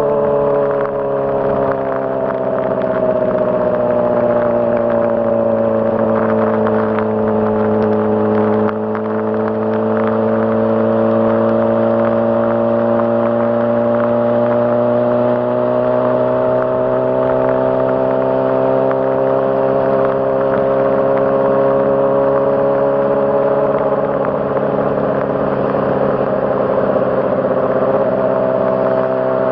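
2006 Honda CBR600RR inline-four engine running under way at steady revs, its pitch easing down for several seconds and then slowly climbing again.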